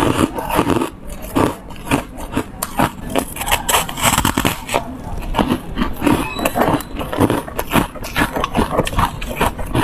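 Biting into and chewing frozen foam ice: a fast, continuous run of crisp crunches and crackles.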